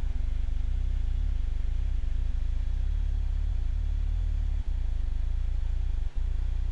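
Steady low drone of an aircraft's engine and airflow noise in the cockpit during flight, with a faint steady hum above it. The sound briefly drops out twice, about four and a half and six seconds in.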